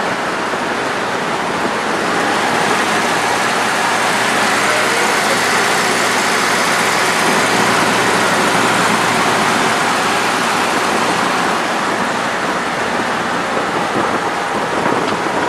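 Motorboat under way: its engine running steadily beneath a loud, even rush of wind and splashing water.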